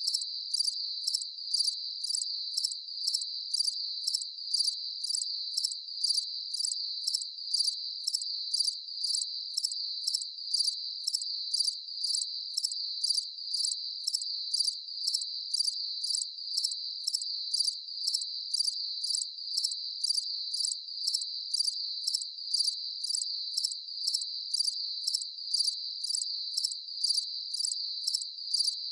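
Crickets chirping in a steady, even rhythm of about two high-pitched pulses a second, unchanging throughout. No frog calls are heard.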